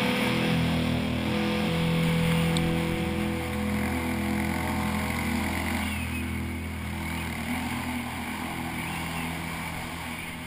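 Background rock music with held guitar chords, getting gradually quieter as it fades out.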